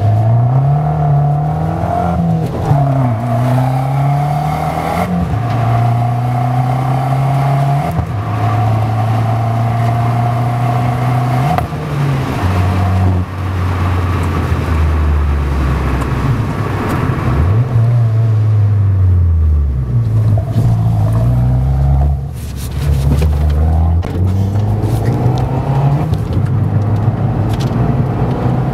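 Fiat 500 Abarth's turbocharged 1.4-litre four-cylinder with an aftermarket Skytune exhaust, heard from inside the cabin, accelerating through the gears. The engine note climbs and then drops at each shift, falls as the car slows past the middle, then climbs again as it pulls away.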